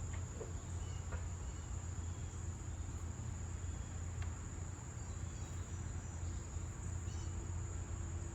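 Insects, crickets or similar, trilling steadily in one high-pitched tone, over a low steady rumble.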